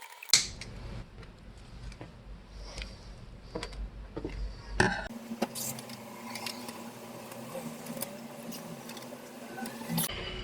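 Scattered clicks and knocks of computer hardware being handled as a graphics card is fitted back into a desktop PC, with a sharp click near the start, another just before the middle and one near the end. A faint steady hum comes in about halfway.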